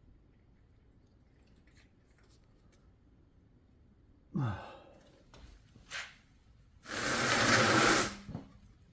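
Mostly quiet. About halfway through, a man's short grunt that falls in pitch, then a single click. Near the end comes a breathy hiss about a second long, like a sigh.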